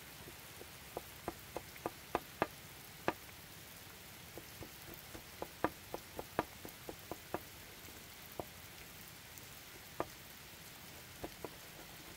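Chef's knife chopping parsley on a wooden cutting board: sharp knocks of the blade striking the board in irregular runs. There is a quick flurry in the first three seconds and another around the middle, then a few single chops near the end, over a steady faint hiss.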